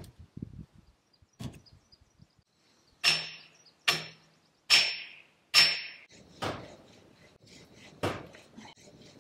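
An axe chopping firewood. Four hard strikes come a little under a second apart, each with a short ringing tone, followed by a couple of lighter knocks.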